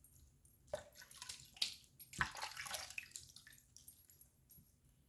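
Water splashing in several short splashes during a rinse in a wet shave, dying away after about four seconds.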